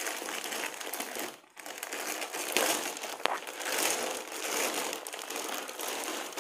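Clear plastic poly bag crinkling as it is opened and handled around folded jeans, with a short break about a second and a half in.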